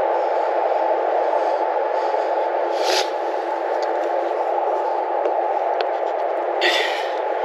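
A steady band of background noise, with two brief scraping sounds, about three seconds in and near the end, as a tire repair plug is forced into a tire's puncture with the insertion tool.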